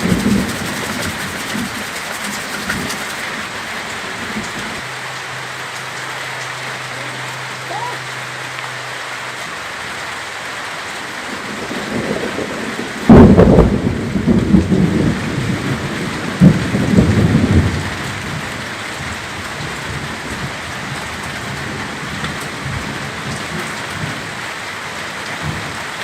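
Steady heavy rain with a sudden loud thunderclap about halfway through, followed by rumbling thunder that dies away over about five seconds.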